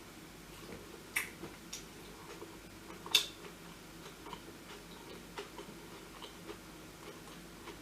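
Quiet eating sounds: faint chewing and small mouth or tableware clicks, with two sharper clicks, the louder one about three seconds in.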